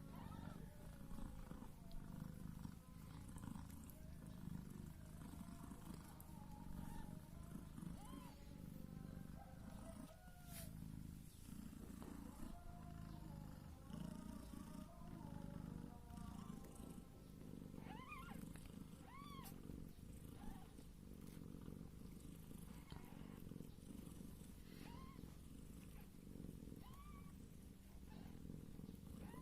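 Mother cat purring steadily while her newborn kittens nurse, with brief high-pitched kitten mews now and then, a few of them close together in the middle and again near the end.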